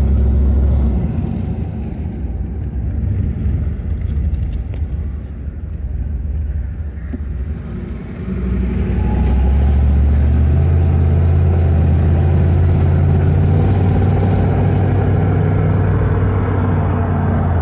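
350 cubic-inch V8 of a 1990 Chevrolet Camaro IROC-Z running through dual exhaust, heard from inside the cabin while driving. It pulls along at low speed, then about halfway through the car accelerates: the engine note rises and then holds a louder, steady low note.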